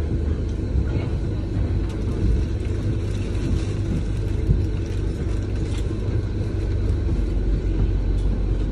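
Double-decker bus idling while stopped, a steady low engine rumble heard from inside the top deck.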